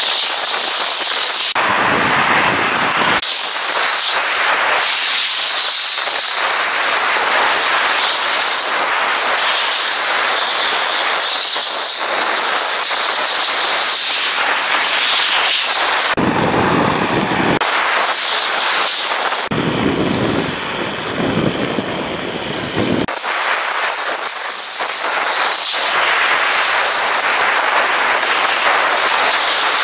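Steady rush of wind and road noise from riding a bicycle at speed along a bike path, with traffic on the road beside it. The noise turns deeper for a few seconds at a time, at about 2, 16 and 20 seconds in.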